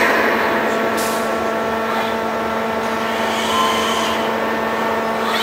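Robotic welding cell running: a steady machine hum of several fixed tones over an even hiss.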